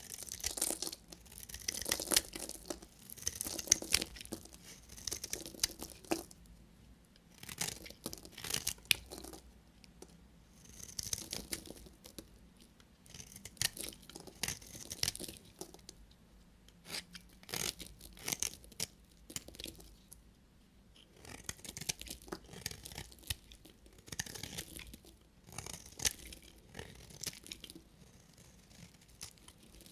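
Knife cutting through bars of soap: short runs of crisp, crackly strokes, a new run every two to three seconds.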